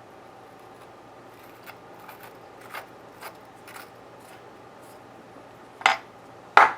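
Wooden front knob of a No. 4 hand plane being unscrewed and taken off: faint little scrapes and ticks of metal and wood, then two sharp clacks near the end.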